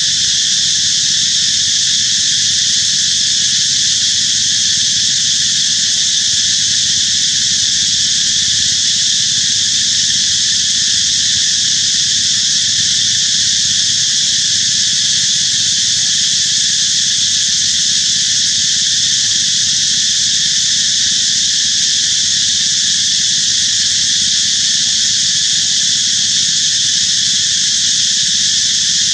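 A loud, steady chorus of insects: a high buzzing drone that does not change or break.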